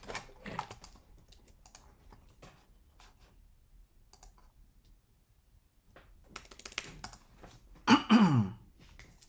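Computer keyboard keys clicking in scattered bursts, with a lull about four to six seconds in. Near the end, the loudest moment, comes a short low vocal sound falling in pitch.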